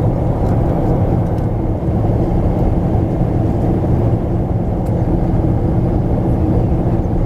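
Boeing 777 cabin noise in flight: the jet engines and the air rushing past the fuselage, heard from a window seat as a deep, steady drone with a faint even hum in it.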